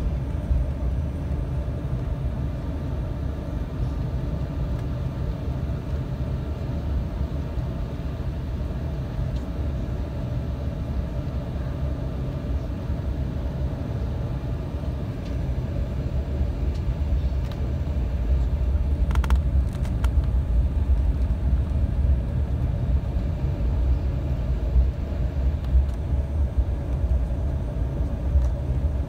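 Cabin noise inside an Embraer 195 jet airliner: a steady low rumble from the jet engines and the aircraft rolling on the ground, growing a little louder about two-thirds of the way through. A few brief clicks sound near the middle.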